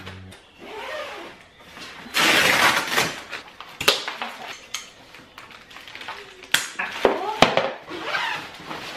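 Plastic packaging rustling and crinkling as stroller wagon parts are unwrapped and handled, loudest a couple of seconds in. Several sharp clicks and knocks of hard parts being set down or bumped, about four in the second half.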